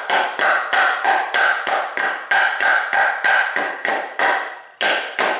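Rapid tapping with a piece of wood, driving a snug 3D-printed plastic Picatinny rail along a Crosman 2240 air pistol until it seats tight. Sharp ringing knocks about three or four a second, with a short pause and two last taps near the end.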